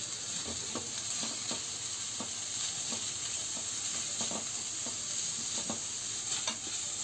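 Chopped onion, capsicum and carrot sizzling in oil in a metal kadai. A wooden spatula stirs them, with irregular light scrapes and taps against the pan.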